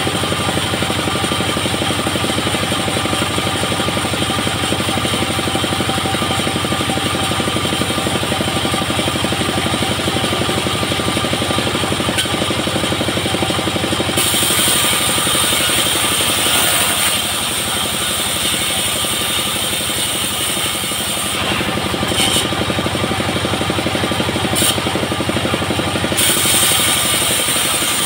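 Homemade bandsaw sawmill driven by a single-cylinder diesel engine, running steadily. About halfway through, and again near the end, a high hiss joins in as the blade cuts into a coconut log.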